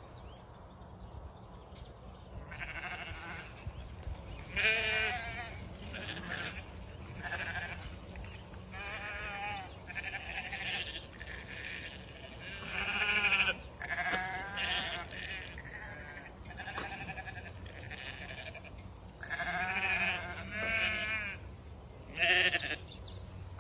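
A flock of sheep bleating, many separate wavering calls from different animals, louder and more frequent near the end as the flock is gathered in close.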